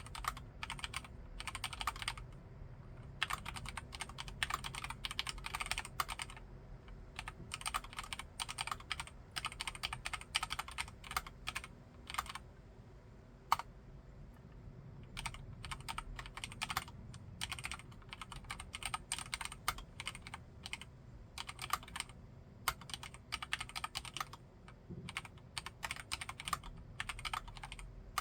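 Typing on a Filco Majestouch Xacro M10SP mechanical keyboard with Cherry MX Red linear switches: fast runs of keystrokes broken by short pauses, with one sharper single keystroke about halfway through.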